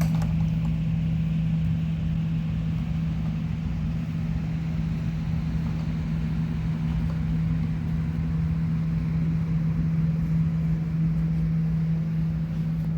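A machine's motor running with a steady low hum that holds one pitch throughout.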